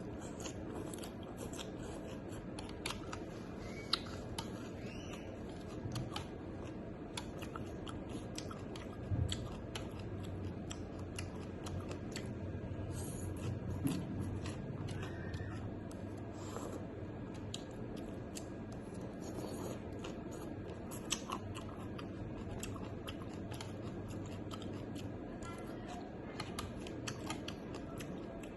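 Close-up eating sounds: chewing with many small, irregular mouth clicks and smacks.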